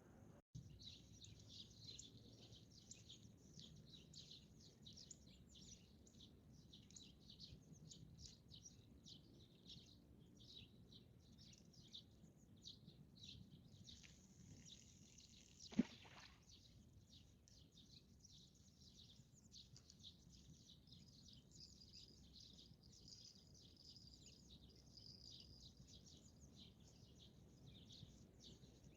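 Birds chirping and singing outdoors in a dense, steady chorus of short high calls. There is a single sharp click or knock about sixteen seconds in.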